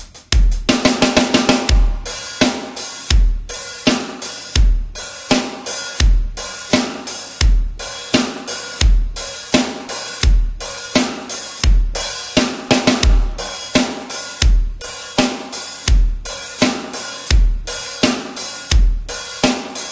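Acoustic drum kit played solo: a fast fill of rapid strokes in the first two seconds, then a steady groove of bass drum, snare and cymbals at about 85 beats per minute.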